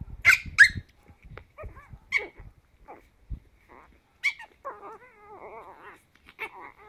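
Ten-week-old Chihuahua puppies play-fighting: two sharp high yips right at the start, more single yips every second or two, and a drawn-out wavering growl in the middle, with scuffling at first.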